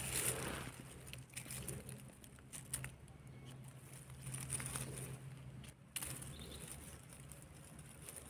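Dry fallen leaves and twigs rustling and crackling under a hand as mushrooms are pulled from the leaf litter, in short scattered spells. A faint steady low hum lies underneath.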